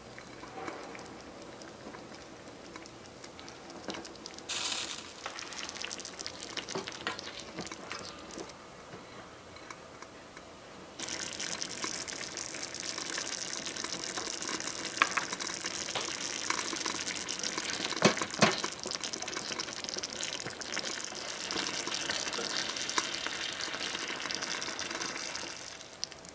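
Chicken stew simmering and bubbling in a small stainless saucepan, a soft crackling that turns louder and steadier about eleven seconds in. A few sharp clicks fall near the middle.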